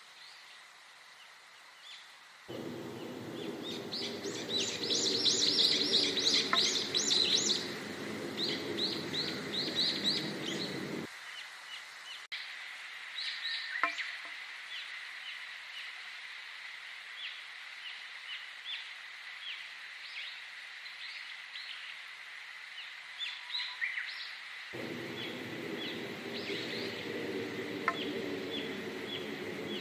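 Songbirds chirping and trilling, densest and loudest a few seconds in, over a faint steady high tone. A low droning layer cuts in abruptly early on, stops suddenly about a third of the way through and returns near the end, like spliced recordings.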